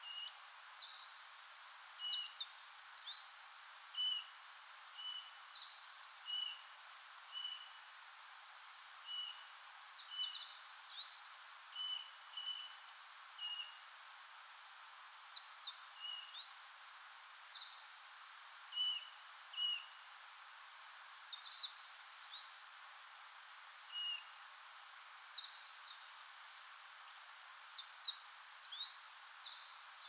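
Wild birds calling: short notes repeated about once a second, with quick clusters of higher chirps every few seconds.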